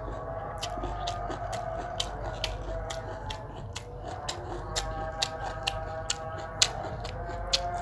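Eating sounds: irregular sharp clicks and crunches, a few a second, from cutlery and chewing, over a faint steady tone in the background.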